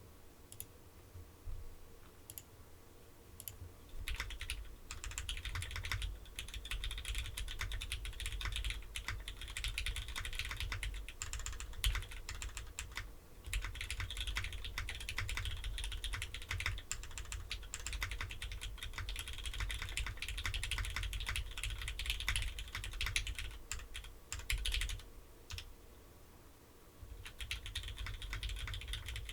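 Typing on a Phantom mechanical keyboard with lubed and filmed Cherry MX Black Hyperglide linear switches (62 g springs), mounted in an aluminum plate with no foam and capped with GMK keycaps. A few scattered keystrokes come first, then fast continuous typing starts about four seconds in. The typing breaks off briefly near the middle and again near the end.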